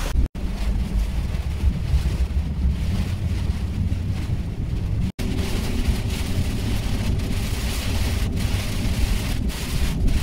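Car cabin noise while driving through heavy rain: a steady low rumble of engine and tyres on the wet road, with wind buffeting the microphone and a hiss of rain and spray. The sound cuts out for an instant twice, once near the start and once about halfway through.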